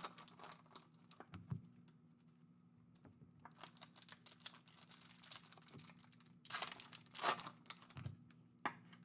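Foil wrapper of a trading-card pack crinkling and tearing as it is pulled open by hand, in short irregular bursts that are loudest a little past the middle.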